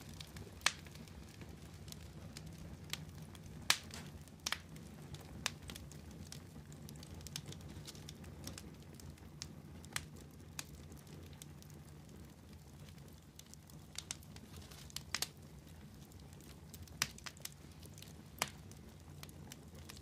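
Wood fire of glowing embers crackling, with irregular sharp pops every second or so over a steady low hum.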